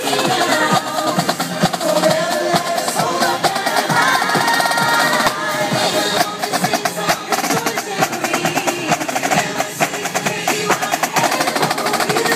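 A marching drumline playing snare drums, rapid strokes and rolls over music.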